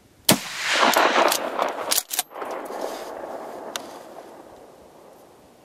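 A gunshot cracks out about a third of a second in and rolls on in a long echo that fades away over several seconds. A few more sharp knocks come through the echo in the first two seconds.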